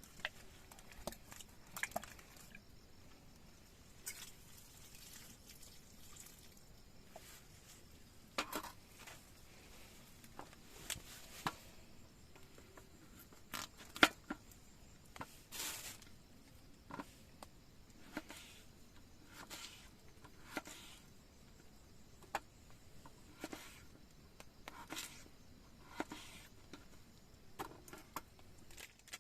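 Raindrops dripping irregularly: scattered light taps and clicks over a faint hiss, the sharpest about halfway through.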